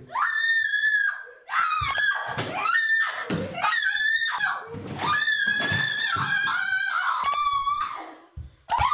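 High-pitched human screaming: a string of long shrieks with short breaks between them, the pitch wavering and sliding up and down.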